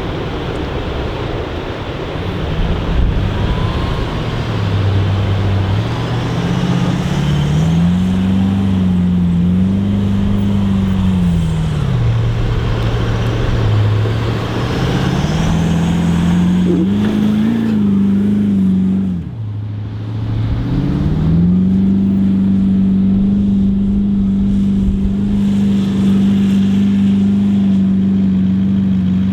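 A 4WD's engine driving on sand, its revs rising and falling several times, dipping briefly about two-thirds of the way through, then holding steady.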